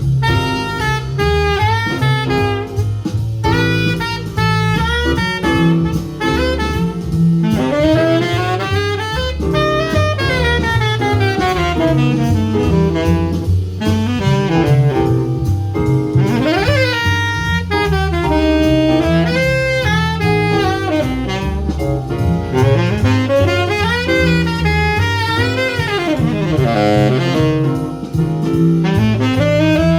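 Jazz saxophone playing a flowing improvised-style melody with frequent slides in pitch, over a walking double bass and a drum kit.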